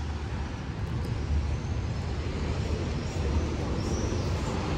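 A city bus running, a steady low engine rumble with street traffic noise around it.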